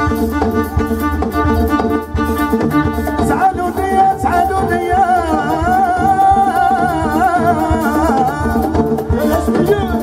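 Moroccan chaabi band playing live, with a driving beat on hand frame drums and percussion over electric bass and keyboard. About three and a half seconds in, a high, wavering, ornamented melody line comes in over the band and carries on to near the end.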